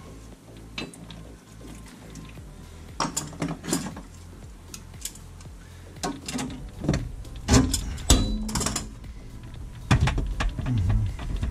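Metallic clicks and clatter of hands working the braided supply line and shut-off valve under a kitchen sink, in scattered bursts, with background music underneath.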